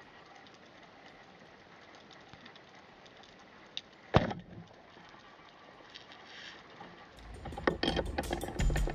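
Faint underwater hiss, broken about four seconds in by a single sharp crack as a speargun fires. Background music with a steady beat comes in near the end.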